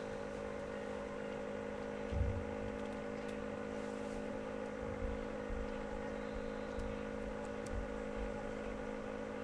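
Radio-controlled car's motor running at a steady, unchanging pitch, with a few low thumps about two, five and eight seconds in.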